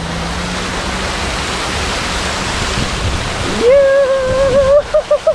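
Steady rush of splashing water. Near the end, a loud, drawn-out pitched call holds for about a second, then breaks into several short notes.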